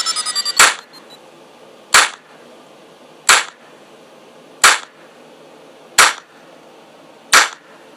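Six sharp percussive hits, evenly spaced about a second and a third apart, each with a short ringing tail and little between them: a sparse beat in the soundtrack music.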